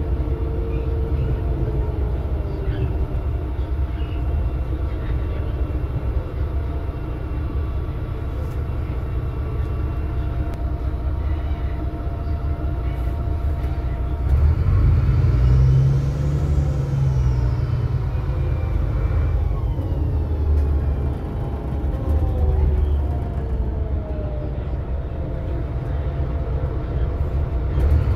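VDL DB250 double-decker bus under way, heard from the upper deck: low engine and road rumble with several whines that rise and fall in pitch as the bus speeds up and slows. About halfway through the engine gets louder and one whine climbs high and falls away again.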